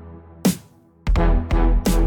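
Electronic dance music with heavy bass notes and sharp percussive hits: a beat drops out briefly near the start, then heavy bass comes back in about halfway through.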